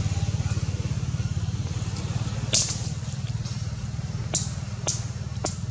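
A small engine running with a low, fast-pulsing hum that slowly fades. Four sharp clicks sound over it, the loudest about two and a half seconds in.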